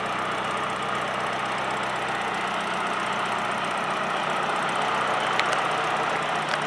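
Nissan KA24 four-cylinder engine idling with a fast, steady ticking, which the owner wonders may come from the fuel injectors. A couple of sharper clicks near the end.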